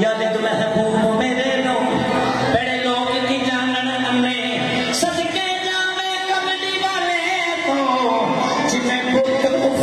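Qawwali performance: male voices singing long held and gliding notes over steady instrumental accompaniment.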